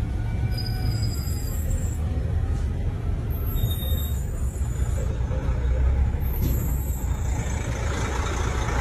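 Steady low rumble of a vehicle's engine and road noise, heard from inside a slowly moving vehicle.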